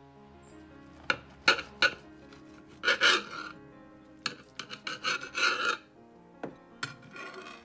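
A knife sawing through the baked crust of a stuffed pizza, in several rasping, crunching bursts, with a few sharp clicks about a second in. Soft piano music plays underneath.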